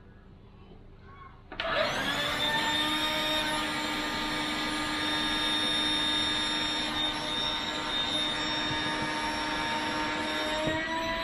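Electric air pump switched on about a second and a half in, then running steadily with a pitched motor hum and rushing air as it inflates an inflatable boat's tubes. The pitch rises slightly near the end.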